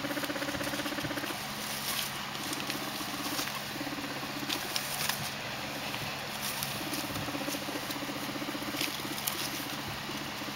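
Guinea pig purring: a fast, pulsing low buzz that comes in repeated bouts of about a second each, with scattered light clicks and rustles in between.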